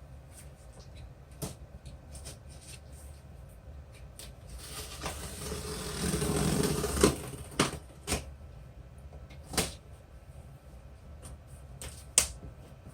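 Cardboard shipping box being opened by hand: a rising scrape and rustle of cardboard for a couple of seconds, followed by several sharp knocks and taps as the box and packing are handled.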